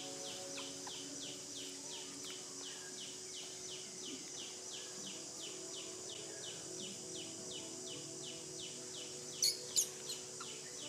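A bird's rapid, evenly repeated chirp, about three a second, over a steady high hiss of insects. Two short, louder high squeaks come near the end.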